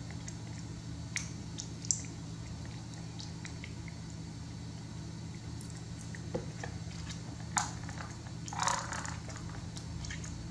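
Baby macaque eating a snack off a plastic spoon: soft chewing and small mouth clicks, with a short louder rustle a little before the end, over a steady low hum.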